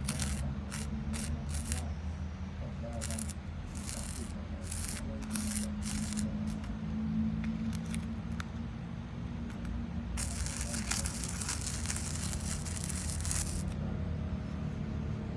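Plastic spoon scraping and tapping loose glitter on a card and in a plastic palette: a run of short scratches through the first half, then about three and a half seconds of continuous gritty scraping starting some ten seconds in. A steady low hum runs underneath.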